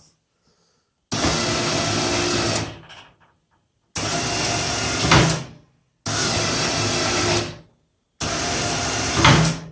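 The 12-volt electric plow winch on a 2004 Arctic Cat 650 ATV runs in four separate bursts of about a second and a half, working the plow up and down, now that it has a new winch relay. The second and fourth runs end with a louder surge.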